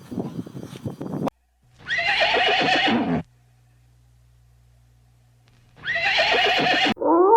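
Two loud animal calls, each a little over a second long, with a wavering, trembling pitch that drops at the end. They are preceded by about a second of clattering noise that cuts off suddenly.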